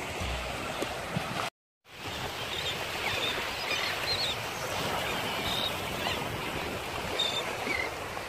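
Small waves washing over a rocky shoreline, with a steady wash of water and wind. The sound drops out briefly about one and a half seconds in; after that, seabirds overhead give short high calls several times.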